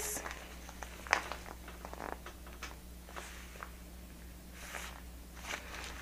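Faint, scattered crinkles and taps of plastic hair packaging being handled, over a low steady hum.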